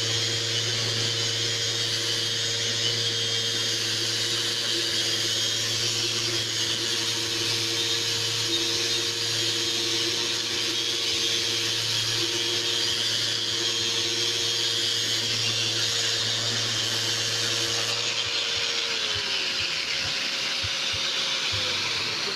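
Festool electric sander running steadily under load on painted wood, with its dust-extraction vacuum drawing through the pad. Near the end the motors are switched off and spin down, one falling in pitch a few seconds after the other.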